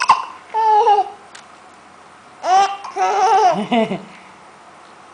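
Eight-month-old baby with hiccups: a sharp hiccup right at the start, then short squeaky, high-pitched baby sounds about a second in and again from about two and a half to four seconds in, between laughing and babbling.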